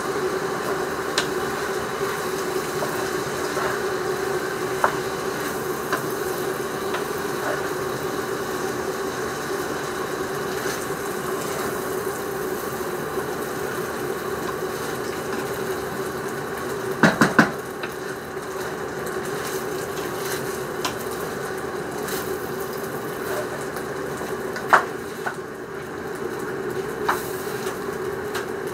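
Steady mechanical hum of a kitchen appliance running, with a few sharp knocks of cookware: three in quick succession a little past the middle and a couple of single ones near the end.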